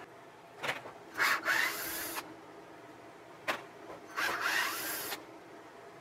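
Two rounds of scraping: each time a short click, then about a second of rough rubbing, like something hard scraping against wood or plastic, the second round about three seconds after the first.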